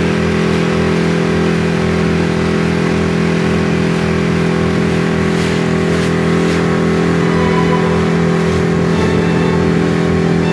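Motorboat engine running steadily at an even pitch.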